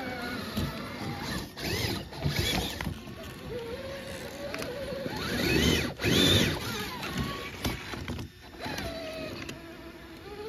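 Axial SCX6 RC rock crawler's electric motor and geared drivetrain whining, the pitch rising and falling in swells as the throttle is worked over rocks, loudest about six seconds in.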